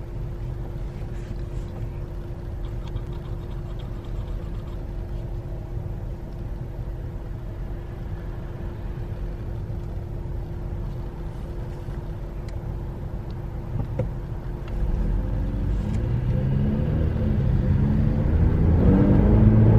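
Car cabin sound while driving: steady engine and road rumble with a constant hum. About three-quarters of the way in, the engine note gets louder and rises as the car speeds up.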